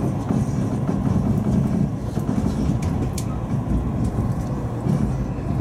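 Steady low rumble of a locomotive-hauled passenger coach running along the track, heard from inside the coach, with a few light clicks.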